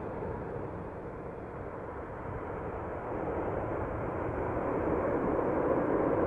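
Ambient soundtrack rumble: a steady drone with no clear pitch or beat, growing louder toward the end.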